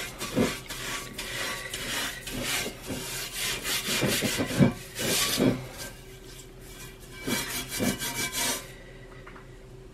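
Stainless steel scrubber rasping back and forth over the ridges of a cast iron grill pan in quick, uneven strokes, scouring off stuck-on residue. The scrubbing stops near the end.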